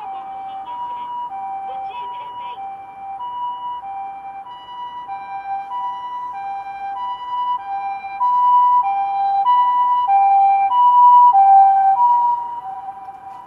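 Japanese ambulance siren sounding its two-tone "pee-po" call, a high and a low note taking turns about every two-thirds of a second over steady road traffic. It grows louder as the ambulance approaches, is loudest about eight seconds in, then drops slightly in pitch and fades near the end as it passes by.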